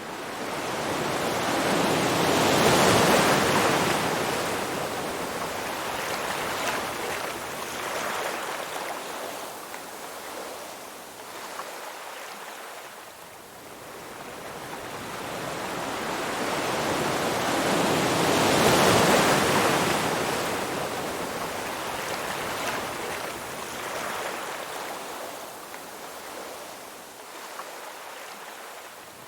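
Ocean waves breaking on a shore and washing back. Two large swells of surf about sixteen seconds apart, each rising to a loud crash and slowly fading into the hiss of receding water.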